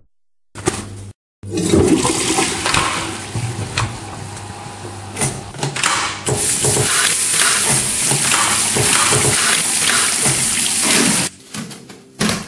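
A toilet flushing: water rushes and gurgles, then turns into a steadier hiss about halfway through that cuts off suddenly near the end.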